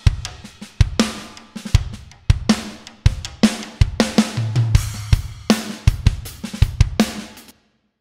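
Multitrack recording of an acoustic drum kit playing a groove: kick, snare, hi-hat and cymbals. The snare runs through the JS 1175 fast-attack compressor, set to add crack to the snare. Playback stops shortly before the end.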